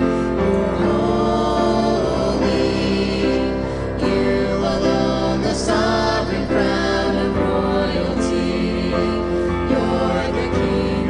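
A group of men, a woman and children singing a gospel worship song together, holding long notes.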